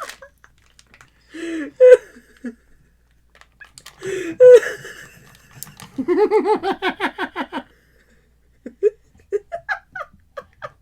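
A person laughing: two loud voiced outbursts, then a long rhythmic burst of laughter about six seconds in.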